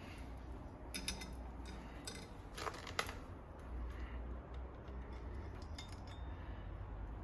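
Loose bicycle chain clinking as it is threaded around the chainring and through the rear derailleur: a few sharp metallic clicks, the loudest about a second in and about three seconds in.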